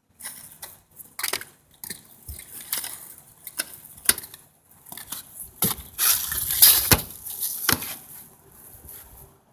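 Irregular clicks, knocks and clinks of hard parts being handled during roofing and skylight installation work, with a louder, noisier stretch about six seconds in.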